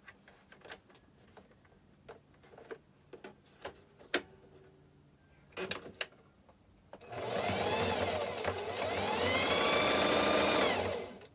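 Singer electric sewing machine stitching a seam. Its motor runs steadily for about four seconds in the second half, rising in pitch as it gets up to speed and falling as it stops. Before that there are a few scattered light clicks.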